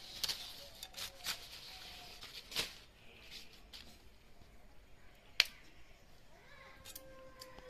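Cauliflower florets being broken apart and sliced against a bonti, the curved floor-mounted kitchen blade, giving a handful of scattered sharp snaps and clicks as the stems split. The sharpest crack comes a little past halfway.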